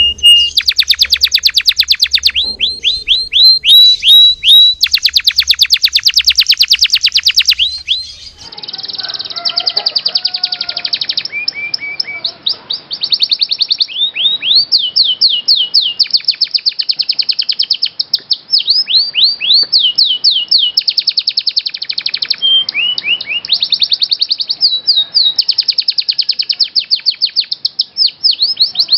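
Domestic canaries singing: long, fast trills of rapidly repeated notes broken by runs of quick falling whistles. The song switches to a different recording about eight seconds in.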